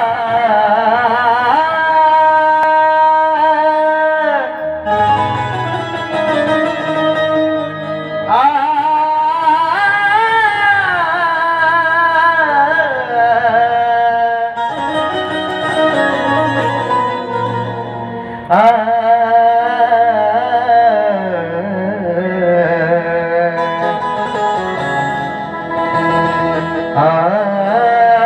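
Live Indian devotional music: a male singer's long, gliding wordless vocal lines over harmonium or keyboard melody and hand-drum beats.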